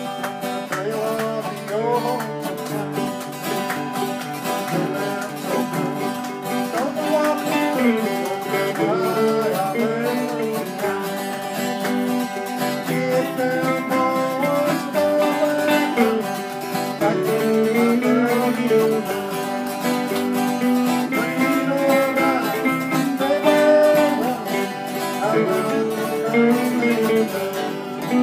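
Acoustic guitar strummed steadily under a man singing a song.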